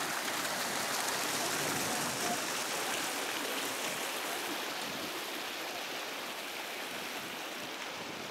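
Water rushing over a low weir into a stone-walled channel: a steady rush of falling water that slowly fades.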